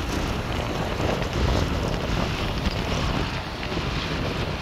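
Wind buffeting the microphone of a camera riding in a moving vehicle, with steady road and traffic noise underneath.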